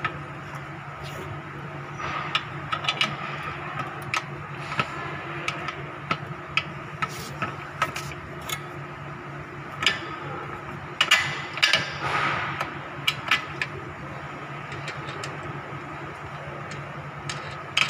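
Small metal clicks and knocks as a screw and nut are fitted by hand through the steel bracket of a bench frame, with a few louder knocks past the middle, over a steady background hum.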